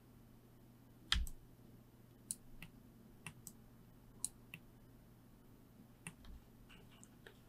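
Computer mouse clicking: about a dozen short, scattered clicks at an irregular pace, the loudest about a second in, over a faint steady low hum.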